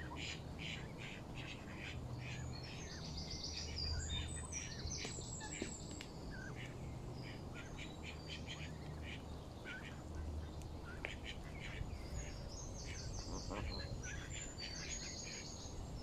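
Birds chirping: many short high calls throughout, with brief higher trilled phrases several times, over a low steady rumble.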